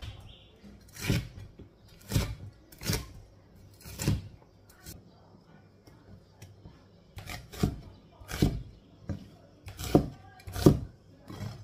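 Chinese cleaver chopping green pepper and onion on a thick wooden chopping board: separate heavy knocks of the blade through the vegetable into the wood, four spaced about a second apart, a pause, then a quicker run of six chops near the end.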